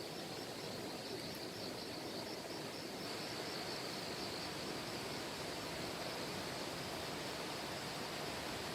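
Steady outdoor ambience: the even rush of a valley stream, with insects trilling in a continuous high, pulsing band.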